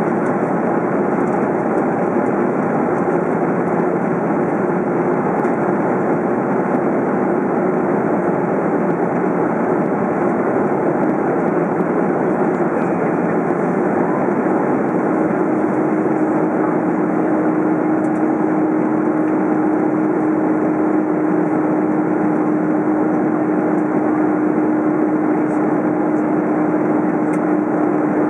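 Airbus A330 cabin noise in flight: a loud, unbroken rush of jet engines and airflow heard through the fuselage. A steady hum within it drops slightly in pitch and grows stronger about halfway through.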